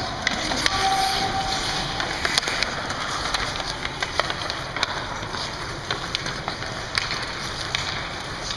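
Ice hockey play on a rink: skate blades scraping the ice under a steady rink noise, with sharp clacks of sticks and puck scattered throughout.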